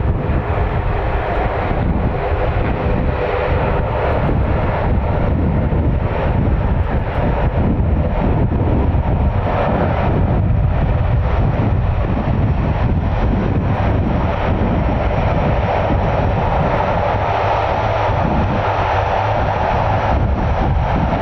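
Military aircraft engines running loud and steady.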